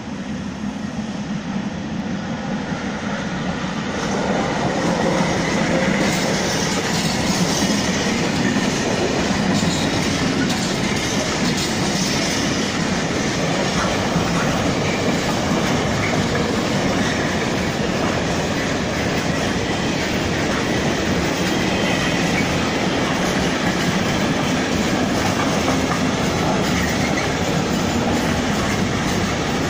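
Container freight train approaching and passing close by on the track, the wagons rolling past with a steady noise of wheels on rail. The sound builds over the first few seconds as the locomotive nears, then holds level as the long line of container wagons goes by.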